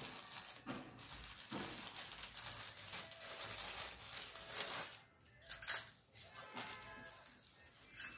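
Crinkling and rustling of a thin clear plastic snack packet being handled, in short irregular crackles, with one louder crackle about two-thirds of the way through.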